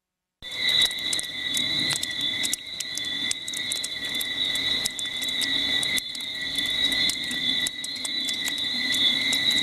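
Chorus of insects: a steady high trilling on two constant pitches, with many scattered sharp clicks, cutting in suddenly about half a second in.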